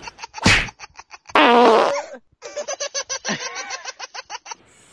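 A man laughing hard in quick bursts, with a loud drawn-out blast about a second and a half in.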